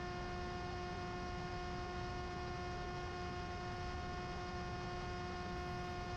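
Electric motor and propeller of a Mini Drak flying wing at steady cruise throttle, heard from the camera on board: an even whine with several higher tones stacked above it, over a low rumble of wind on the microphone.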